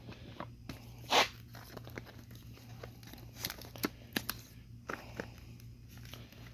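Fireworks packaging being handled: crinkling and scattered light knocks, the loudest about a second in, over a steady low hum.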